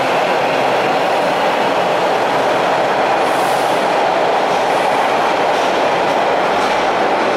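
Toronto subway train running out along the station platform: a loud, steady rumble and rush of steel wheels on the rails, with a light clatter over the track.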